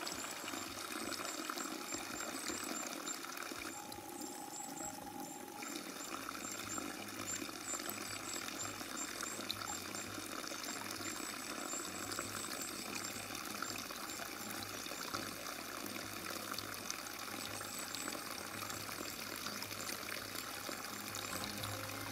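Steady stream of water pouring from a wooden spout into a log trough, splashing continuously into the pool of water below.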